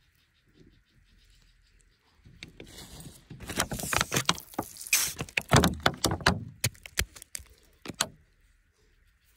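Scraping and crumbling of pebbly soil, with many sharp clicks of small stones, starting about two seconds in, loudest in the middle and ending in a few separate clicks near the end.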